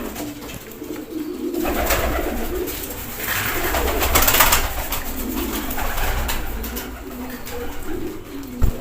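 Domestic pigeons cooing repeatedly in low, warbling calls, with stretches of rustling noise and a brief sharp click near the end.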